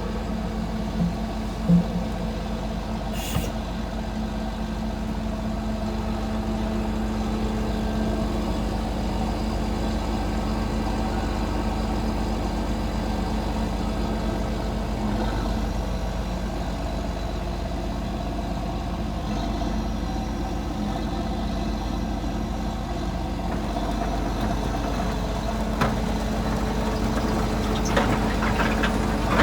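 Volvo P7110 tracked asphalt paver's D8H diesel engine running steadily, with a few short clicks and knocks near the start and near the end.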